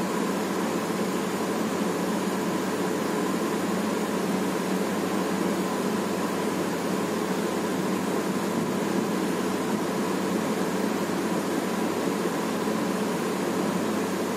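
Steady background hiss with a faint low hum, even throughout, with no distinct events.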